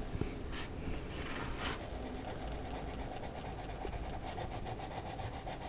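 A coloring utensil rubbing on the paper of a coloring book, with a few short scratchy strokes in the first two seconds.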